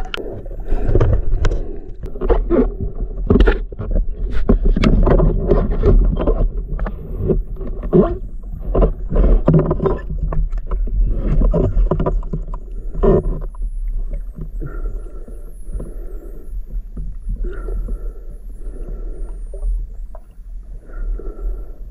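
Water sloshing and bubbling around an underwater camera, over a low rumble. Many sharp knocks and splashes fill the first half, then the sound settles into softer, evenly repeating swirls of water.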